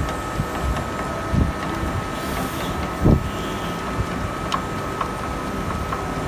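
Band saw's workpiece vise moving, over a steady machine hum with a constant thin whine, two dull knocks about a second and a half and three seconds in, and a few light clicks near the middle. The vise opening and closing abnormally is given as a likely cause of the workpiece shifting during the cut and the blade breaking off-square.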